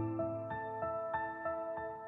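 Soft background music: a gentle melody of piano-like keyboard notes, a new note about every third of a second.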